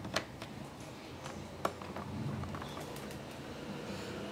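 Hard plastic pieces of a Play-Doh Cake Making Station clicking and tapping as they are handled and pressed into place: two sharp clicks about a second and a half apart, with lighter taps between.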